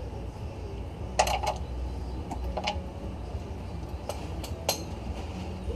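A few short, sharp metallic clicks and clinks of a wrench and socket working at the oil pan drain plug, spaced out over several seconds above a low steady hum.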